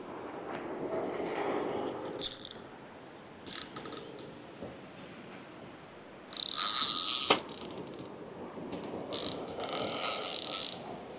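Fishing reel ratcheting in four short bursts of clicking, the loudest lasting about a second past the middle.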